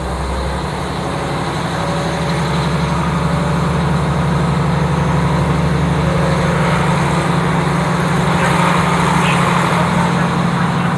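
Diesel engine of a KiHa 40 railcar running under power, heard through an open window with wind noise, a steady low drone that grows gradually louder.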